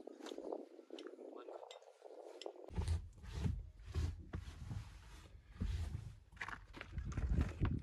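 Handling noises: rustling with light clicks and knocks as bags and items are moved about, joined about three seconds in by a low rumble with dull thumps.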